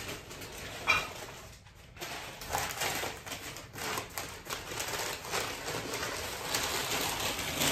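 Packing paper crinkling and rustling as a glass piece is unwrapped by hand, a dense run of crackles, with one sharp tap about a second in.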